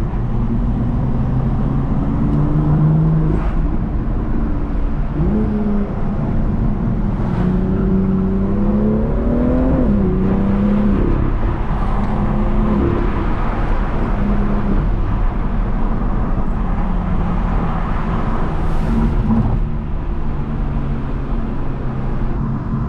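BMW M2's N55 turbocharged straight-six driving on its stock intake, pulling through several accelerations with the engine note rising and then dropping sharply at each gear change, over a steady low rumble.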